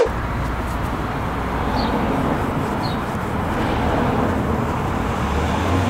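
Steady outdoor background noise with a low rumble, as of distant traffic, with two faint short chirps partway through.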